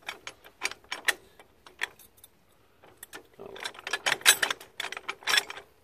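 Steel telescoping three-point-hitch stabilizer bar being moved by hand: a string of light metal clicks and rattles from the sliding tube and its dangling pin on a chain, with a denser run of clattering about three and a half seconds in.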